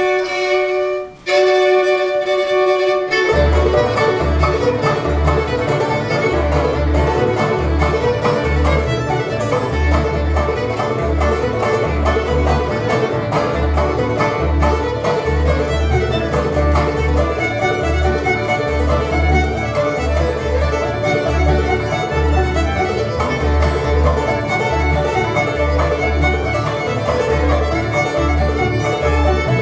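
Old-time string band of fiddle, banjo, acoustic guitar and upright bass playing a fiddle tune. It opens with a few long held notes, then about three seconds in the full band comes in, the bass keeping a steady beat under the fiddle.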